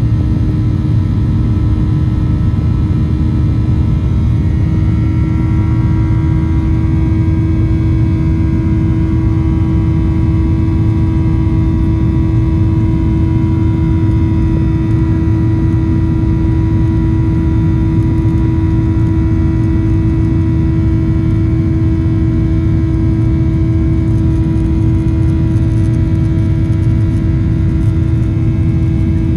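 Boeing 737-800's CFM56-7B jet engines heard from inside the passenger cabin: a loud, steady rumble with a strong hum. A few higher tones rise slightly about five seconds in.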